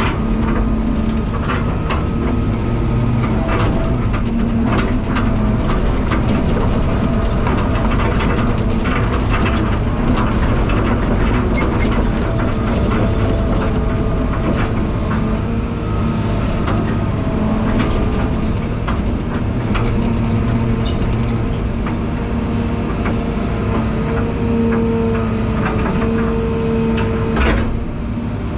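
A heavy machine's engine running steadily, with frequent clanks and rattles over the drone. A higher whine strengthens briefly near the end.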